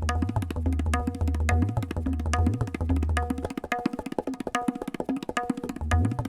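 Tabla played in a fast run of strokes: ringing dayan strokes over deep, sliding bayan bass, a phrase on the bol "dha tit getetaga getetaga". The bass drops out about halfway through, leaving only lighter strokes, and comes back near the end.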